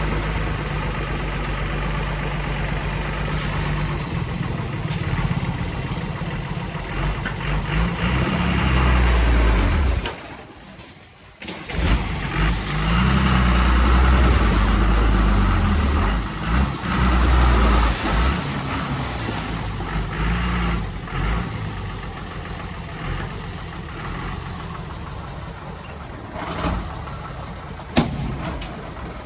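Diesel engines of earthmoving machines running and revving under load, rising and falling several times. The sound drops out briefly about ten seconds in, and there is a single sharp click near the end.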